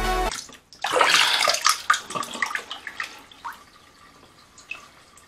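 Water splashing in a filled bathroom sink as a hand reaches in and lifts a phone out, loudest about a second in, then scattered drips falling back into the basin and fading.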